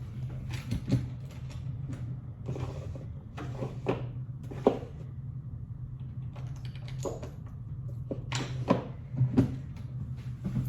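Scattered knocks, clicks and rattles of objects being handled and moved while someone rummages for something, over a steady low hum.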